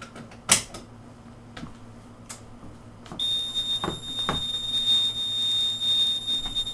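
A sharp click from the manual fire alarm pull station being pulled, then about three seconds in a fire alarm sounder comes on with a steady, high-pitched electronic tone that holds without pause as the system goes into alarm. A couple of light knocks sound soon after it starts.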